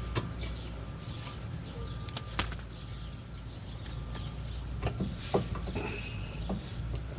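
Scattered metal clicks and knocks of a flat screwdriver working to pry a rear brake caliper off its bracket, with a steady low hum underneath.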